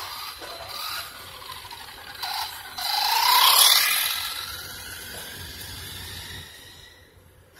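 WLtoys RC truck's electric motor whining and its tyres running on concrete as it drives past, rising in pitch and loudest about three and a half seconds in, then fading as it moves away.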